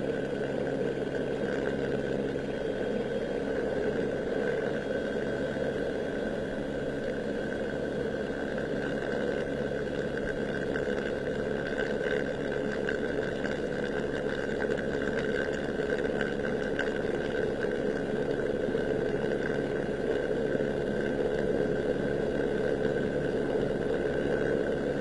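A steady engine drone with a constant high whine over a low hum. It holds one pitch throughout, with no revving.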